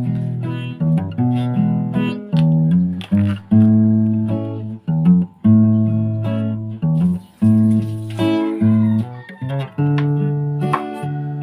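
Background music played on guitar: plucked notes over a steady bass line, changing every half second or so.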